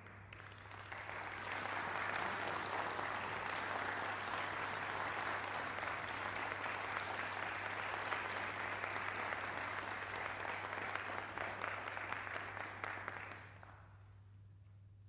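Audience applauding, building over the first couple of seconds, holding steady and dying away near the end. A steady low hum runs underneath.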